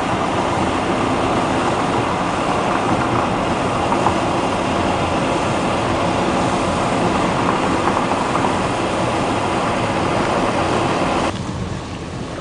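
Steady road and engine noise heard inside a moving car's cabin, with tyres running on a wet paved road. About a second before the end the sound drops suddenly to a quieter cabin noise.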